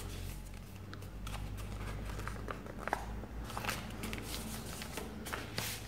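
Faint handling of paper: scattered light rustles and small taps as folded paper and sheets are moved about, over a low steady hum.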